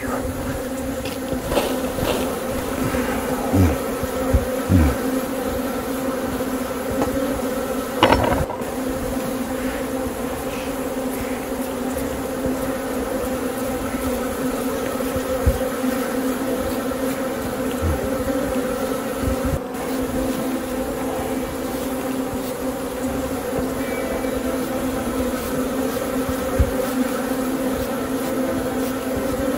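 Honeybees buzzing around an open hive as a frame of bees is shaken off, a steady hum. A few short knocks come in the first several seconds.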